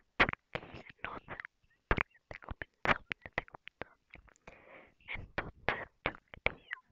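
Close-miked ASMR mouth sounds: quick wet clicks and smacks of lips, tongue and saliva, mixed with breathy, inaudible whispering.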